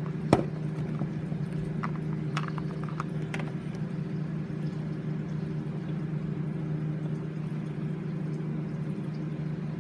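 Steady low hum holding one pitch throughout, with a few light clicks and taps of plastic toy figures being handled; the sharpest knock comes just after the start.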